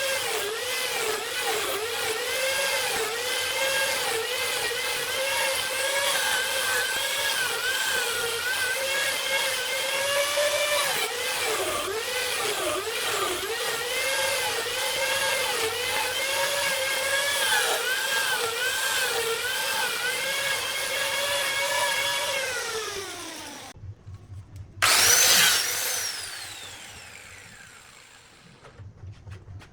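Electric power tool motor running with a high whine that dips in pitch again and again as it cuts into wood, then winds down and stops about 23 seconds in. A brief loud burst from a tool follows a couple of seconds later.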